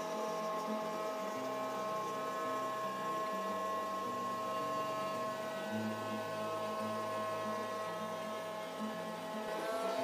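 3040 CNC router milling a gear out of half-inch Baltic birch plywood: the spindle holds a steady high whine while the stepper motors drive the axes with a lower whine that jumps from pitch to pitch every second or less as the cutter changes direction and speed.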